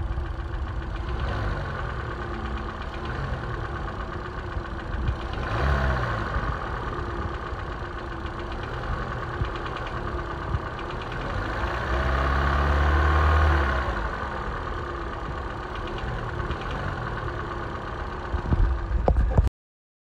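2013 Hyundai Elantra's 1.8-litre four-cylinder engine idling with a faint rapid ticking, revved briefly about five seconds in and again for about two seconds near the middle. The ticking is piston slap from worn-out piston skirts and scored cylinder walls.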